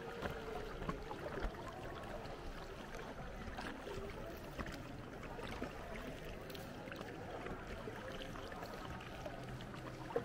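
Water gurgling and lapping around a sea canoe as it is paddled, with small scattered splashes and knocks.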